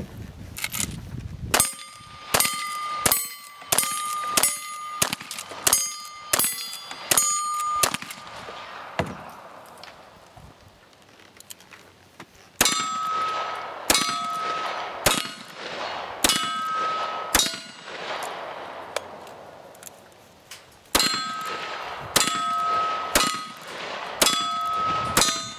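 Revolver shots fired in quick strings at steel targets, each shot followed by the ring of the struck plate. Three runs of shots with short pauses between.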